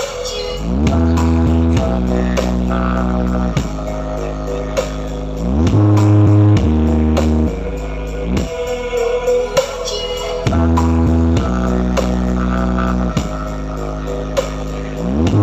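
Bass-heavy dance music played loud through a large carnival sound system (sound horeg) under test. Deep bass notes are held in long blocks, with a rising sweep into a new bass phrase about every five seconds over a steady beat.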